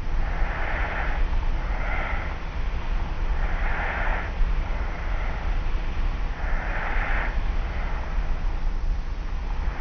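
Light snoring of a sleeper lying on their back: slow, soft breaths about every three seconds, three in all. The recording is an old tape recording, with a steady low hum and hiss underneath.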